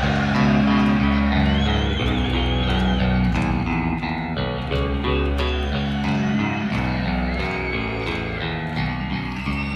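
A heavy metal band playing live, with distorted electric guitars over bass guitar and steady drums. A high lead guitar line wavers in pitch about a second and a half in.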